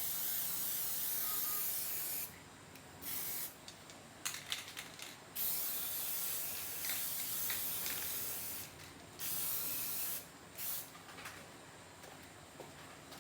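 Spray hissing in repeated bursts of one to three seconds, with short breaks between them. A few sharp clicks come about four to five seconds in.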